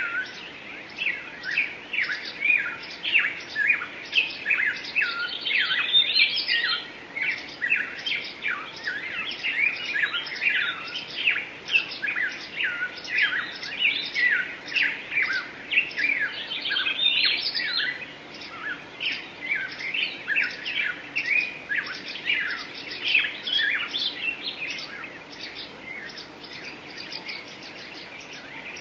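Several small birds singing together in a dense chorus of rapid chirps and short falling whistled notes, with no pause.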